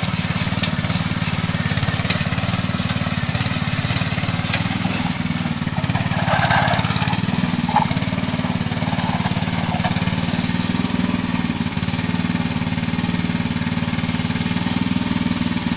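Small engine of a motorized wheelbarrow running steadily under a heavy load of oil palm bunches, with scattered sharp clicks over the first few seconds.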